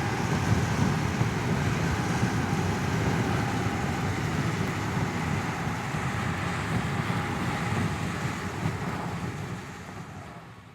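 Car interior ambience: a steady low rumble with a hiss over it, heard inside a car's cabin, fading out near the end.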